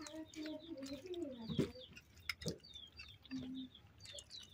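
Small birds chirping repeatedly in short high notes. A low, drawn-out animal-like call lasts through about the first second and a half and drops in pitch at its end, with a shorter one a little past the middle. Scattered sharp clicks come in between.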